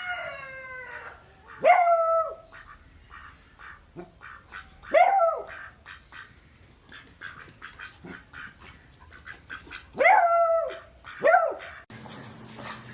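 Dog giving several drawn-out, high-pitched barks a few seconds apart, with soft clicks in between.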